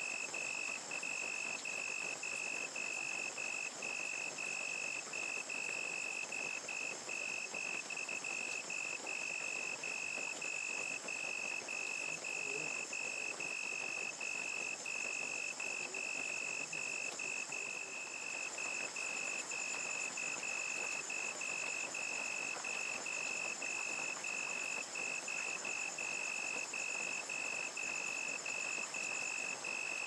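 Crickets chirping in a steady, even rhythm of about two high chirps a second, with a higher continuous insect trill above them, over the even hiss of falling rain.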